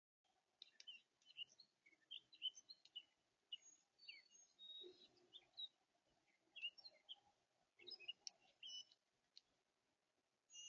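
Wild songbirds chirping, many short separate chirps and quick slurred notes from several birds, faint.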